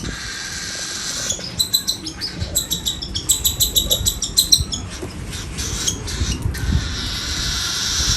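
Baby cockatiel making its raspy food-begging calls: a hissing rasp that breaks into a quick run of pulsed chirps, then settles back into the rasp. This is the begging sound of a hungry, hand-fed chick.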